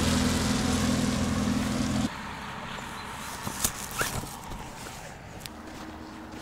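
A motor vehicle engine running close by, a steady low drone that cuts off suddenly about two seconds in. After it comes quieter outdoor background with a few light clicks and knocks.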